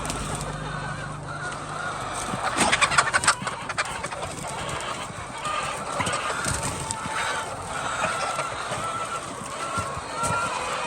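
Flock of hens clucking and calling, short repeated calls overlapping throughout. A quick clatter of sharp knocks about two and a half seconds in stands out as the loudest moment, and a low hum sounds for the first two seconds.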